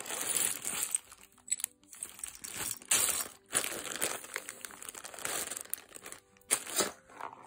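Plastic bag crinkling in irregular bursts as it is handled and rummaged through.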